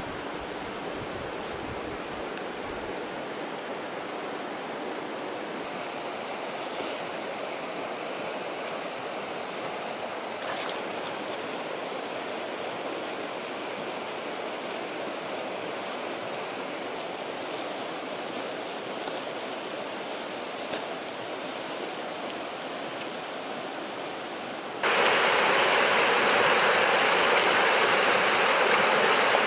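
Shallow stream running over gravel, a steady even rush of water. Near the end it cuts suddenly to a much louder rush of water flowing fast over stones.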